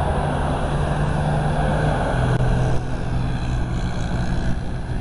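Road traffic: a vehicle engine hums steadily, its tone dropping a little about two seconds in, over a steady rush of noise.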